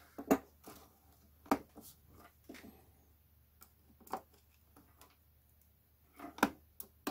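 Scattered light clicks and taps of a computer power supply's casing and its replacement fan being handled and fitted, the loudest a little after the start and about one and a half seconds in.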